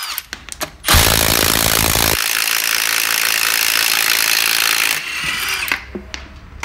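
Milwaukee M18 Fuel 3/8-inch cordless compact impact wrench on a truck lug nut: after a few light clicks it hammers rapidly for about a second, then runs smoothly for about three seconds without hammering as the nut spins freely, and winds down near the end.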